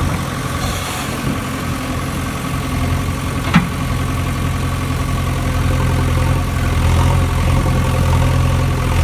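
A low engine drone idling steadily. One sharp knock about three and a half seconds in.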